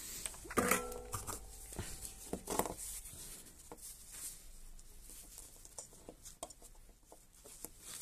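Gloved hands handling wires and a small circuit board on a workbench: rustling with light clicks and taps, and a short pitched sound about half a second in.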